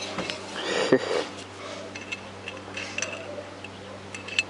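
Metal parts and tools being handled: scattered clinks and knocks, the loudest about a second in and a couple of sharp clicks near the end, over a low steady hum.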